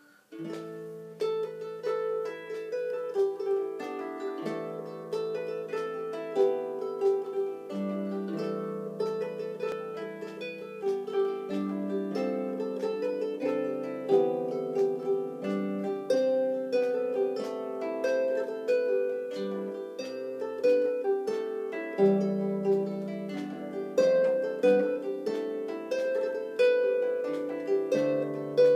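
Solo harp playing an Irish tune, a plucked melody over ringing bass notes; the playing starts about a second in.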